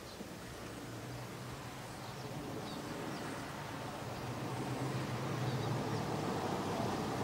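Engine of an approaching ute, a steady low hum growing gradually louder, with a few faint bird chirps.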